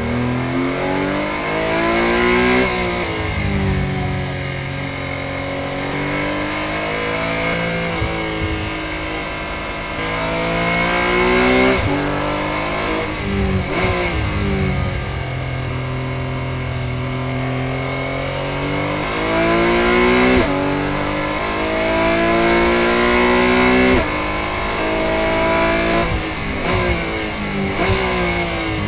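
Porsche 718 Cayman GT4 Clubsport's naturally aspirated flat-six heard from inside the cockpit, revving up hard and dropping in pitch several times, sometimes suddenly, as the car accelerates and slows around the track.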